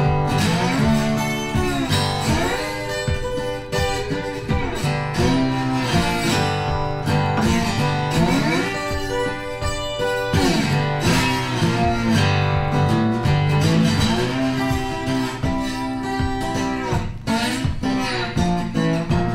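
Background music led by guitar, plucked and strummed, with notes that slide in pitch.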